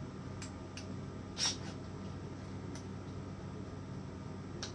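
A few light clicks and one short scrape as hand tools are handled on a workbench, the scrape about a second and a half in being the loudest, over a steady low hum.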